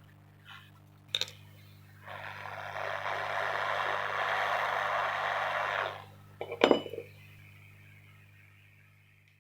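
Hot-air rework station blowing a steady rush of air for about four seconds, swelling in and cutting off abruptly, while desoldering components from a phone motherboard. A sharp click comes before it, and a cluster of clicks and knocks follows it, the loudest moment. A low hum runs underneath.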